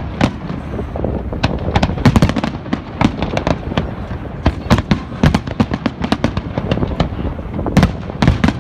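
Fireworks display: a dense run of sharp bangs and crackles, several a second and coming in volleys, over a continuous low rumble.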